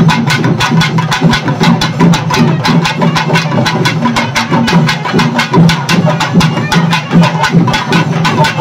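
Drum-led percussion music with rapid, even drum strokes, several a second, over a steady pitched backing.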